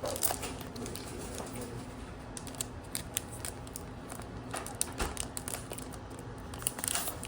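Light handling noises of trading cards and a foil booster pack: scattered soft clicks and ticks with faint rustling and crinkling.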